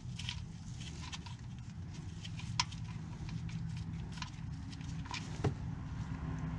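Light clicks and ticks as a gloved hand turns the drain plug out of a Ford Fusion's oil pan, with two sharper clicks about two and a half and five and a half seconds in, over a steady low hum. Near the end the plug comes free and used engine oil begins streaming into the drain pan.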